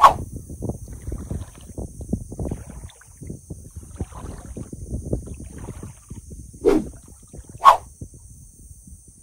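Kayak gliding through shallow marsh water, with wind buffeting the microphone in an uneven, choppy rumble. Three short, sharp sounds cut through it: one at the start and two about a second apart near the end, the last the loudest.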